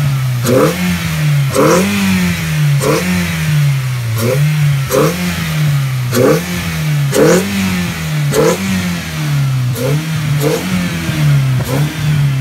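A 2001 Toyota RAV4's four-cylinder engine, fitted with an aftermarket full exhaust system and a K&N cone air intake, revved in quick blips about once a second. Each blip rises and falls in pitch and opens with a sharp rush of noise.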